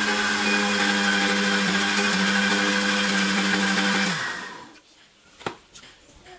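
Electric mixer grinder with a steel jar running at a steady pitch, grinding grated coconut with water to extract coconut milk. It is switched off about four seconds in and winds down with a falling hum, followed by a click as the jar is handled.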